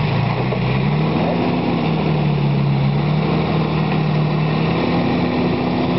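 Engine of a lifted off-road SUV revving up over the first second, held at steady high revs, then dropping back near the end as the vehicle strains on a steep grassy climb. The crew say the front axle is not engaged, so it is pulling on the rear wheels only.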